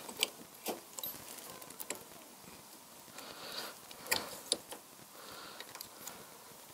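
Light metallic clicks and taps from hands fitting a bolt and handlebar clamp onto a metal motorcycle bar riser, with soft rustling of handling between them.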